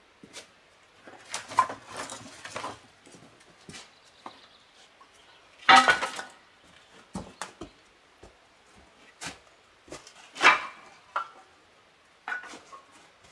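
Footsteps crunching and scraping over rocks and dry leaves as a person scrambles up a rocky slope, with scattered knocks. Two louder crunches come about six seconds in and about ten and a half seconds in.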